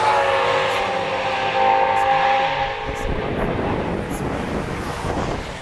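Race car engines at speed going past, the engine note falling in pitch, giving way to a rougher rush of noise about three seconds in.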